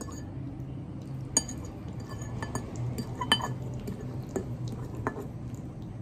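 Metal fork clinking and scraping against a ceramic bowl as noodles are twirled, with several sharp clinks, the loudest about three seconds in. A low steady hum sits underneath.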